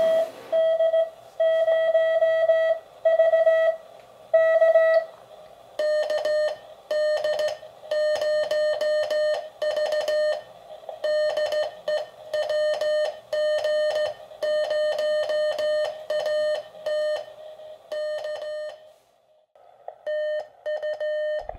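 Morse code (CW) tone from a QRP ham radio transceiver, keyed on a straight key. A few long dashes come first, then quicker strings of dots and dashes, with a brief break near the end.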